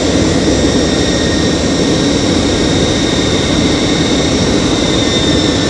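Steady in-flight cabin noise of an Ilyushin Il-76, heard from a seat by the window: the four turbofan engines' drone and the rush of air, with a steady high whine over it.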